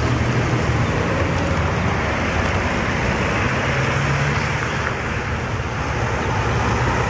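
Road traffic: cars passing close by on the road, with the low hum of the Caesar 8x8 self-propelled howitzer's diesel engine as it drives away. The engine hum swells briefly about four seconds in.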